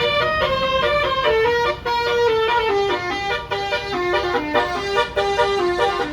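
Bus 'telolet' musical air horn of the Basuri type playing a fast melody of short horn notes that step mostly downward in pitch, with a low rumble underneath.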